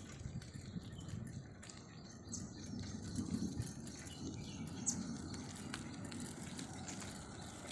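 Wind buffeting the microphone as a low, uneven rumble that swells in gusts, with a few faint, short, high chirps and ticks.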